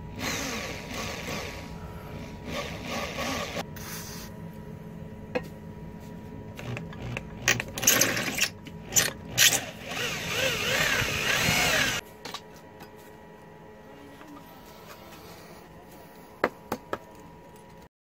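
Electric drill boring through the hardened steel of a knife tang cut from an old circular saw blade, in two spells, the second louder and cutting off suddenly about two-thirds of the way through. A few sharp clicks follow near the end.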